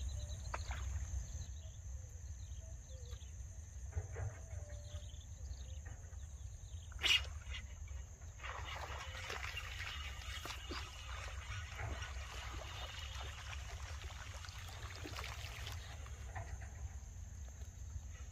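Wind rumbling on the microphone, a single sharp snap about seven seconds in, then about seven seconds of splashing and rustling as a hooked snakehead is pulled through the water weeds.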